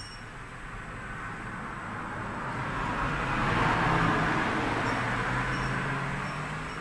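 A vehicle driving past: engine hum and tyre noise that grow to their loudest about four seconds in, then fade away.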